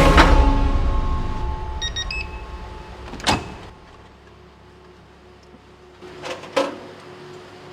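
A front-loading washing machine's running noise dies away over the first few seconds, with a few short electronic beeps about two seconds in. A sharp click follows, and later two quick knocks, like the door latch and door being worked.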